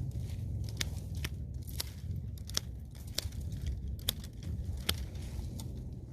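Hand pruning shears snipping grapevine canes: a string of sharp, irregular snips, about ten over six seconds.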